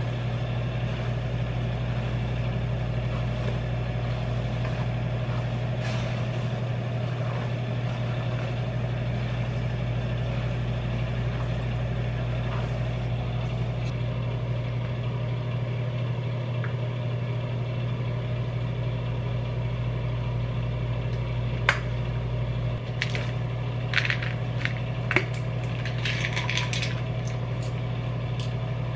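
A steady low machine hum, with several sharp clicks and taps in the last seven seconds or so.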